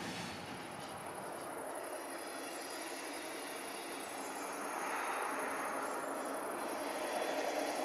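Distant train rolling along the line, growing louder about five seconds in, over a steady high chirring of insects in the grass.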